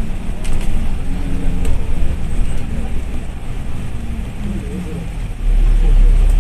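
A moving bus heard from inside: steady engine hum and road noise. About five seconds in, a deep rumble suddenly gets much louder and stays loud.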